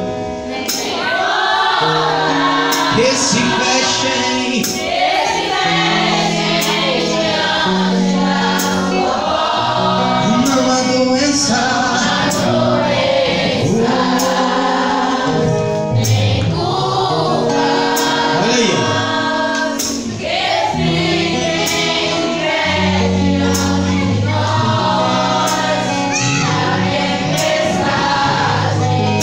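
Gospel praise song: singing over a band with a steady beat and a bass line that moves in held notes.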